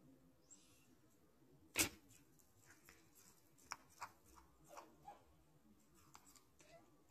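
A hen's beak pecking at greens right at the microphone: one sharp, loud peck about two seconds in, then a handful of softer pecking clicks.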